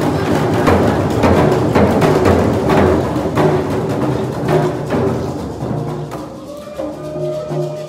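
Group of hand-held frame drums beaten together in a steady beat, about two strikes a second, with voices singing over them. Near the end the drumming fades out and the singers hold their last notes.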